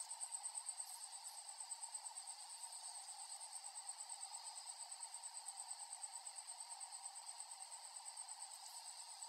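Faint, steady, high-pitched trill that pulses evenly several times a second, like an insect chirping in the background.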